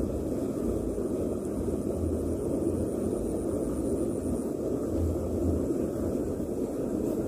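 Steady rushing background noise with a low rumble underneath, unchanging throughout; a faint, thin high whine runs through the first half and then stops.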